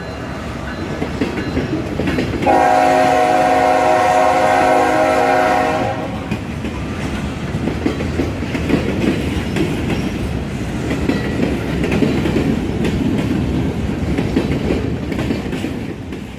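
Locomotive air horn sounding a chord of several tones for about three seconds, starting a few seconds in, then the steady rumble and clatter of train wheels passing over the rails.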